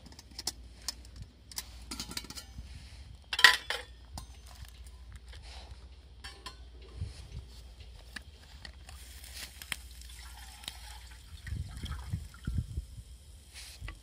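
Stainless steel cook pot clinking and clattering on the metal frame of a SOTO G-Stove compact gas burner as it is handled and set in place: a run of small sharp clicks with one loud clatter about three and a half seconds in.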